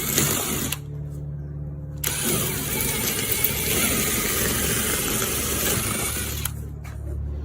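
Power drill boring pilot holes into a concrete block wall: two spells of grinding drilling, with the motor humming as it spins free briefly between them and again near the end.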